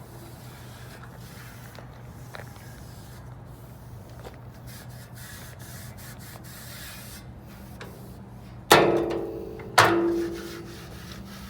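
Low steady hum, then two loud metallic clanks about a second apart near the end, each ringing briefly: the lid of a stainless steel Paste Mate 62 wallpaper pasting machine being shut.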